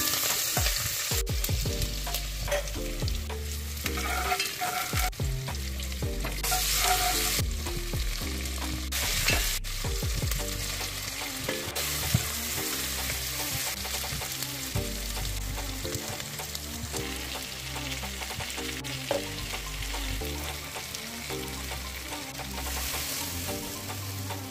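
Onions, green chillies and curry leaves, and later beef pieces, sizzling as they fry in oil in a pot. A wooden spatula stirs them and now and then knocks against the pot, over a low music track.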